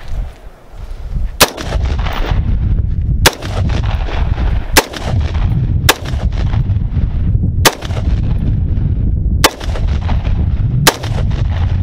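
AR-15 rifle fired seven times in semi-automatic single shots, spaced unevenly about one to two seconds apart, each sharp crack trailed by a short echo. A steady low rumble fills the gaps between shots.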